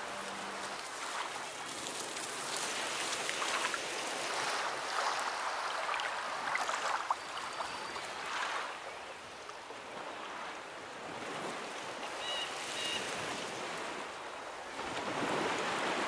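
Ocean surf: waves breaking and washing in noisy surges that swell and ease every few seconds.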